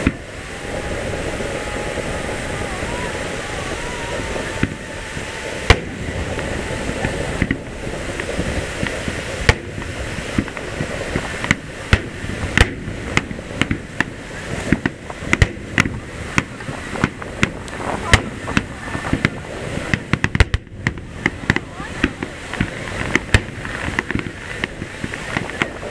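Aerial fireworks display: a thin rising whistle early as a shell climbs, one sharp bang about six seconds in, then from about ten seconds a quickening run of booms and crackling bursts, over steady crowd chatter.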